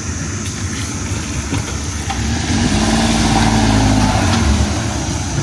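A car engine running with a steady low rumble; an engine tone swells up in the middle and fades again.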